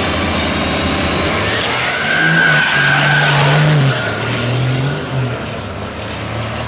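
Diesel drag truck launching and accelerating hard down the strip, its engine pitch stepping through the gears while a high whine climbs sharply in pitch. The sound is loudest about two to four seconds in, then fades as the truck pulls away.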